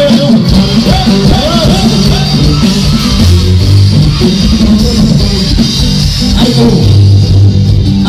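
Live band music played loud through a PA: drums and guitar over a steady beat, with long held low bass notes twice.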